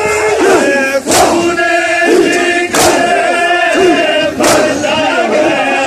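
A crowd of men chanting a noha in long held notes, marking the rhythm with loud unison chest-beating (matam) slaps, three strikes about a second and a half to two seconds apart.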